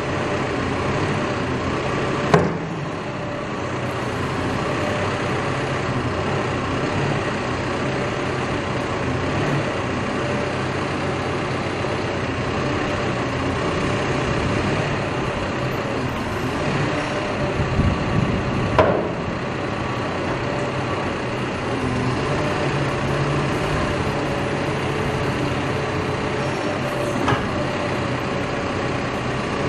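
Cat backhoe's diesel engine running steadily, with a sharp knock about two seconds in, another about two-thirds of the way through, and a lighter one near the end.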